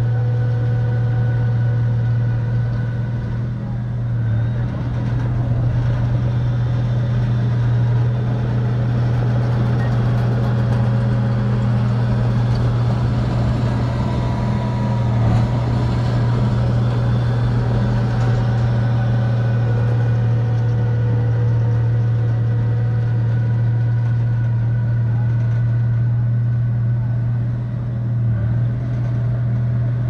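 A bulldozer's diesel engine running at a steady speed while pushing sand, a constant low hum with a couple of brief dips in level.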